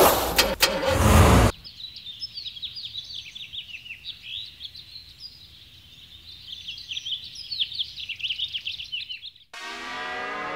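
A loud vehicle sound cuts off about a second and a half in, giving way to a chorus of small birds chirping in quick, falling twitters. Near the end music starts.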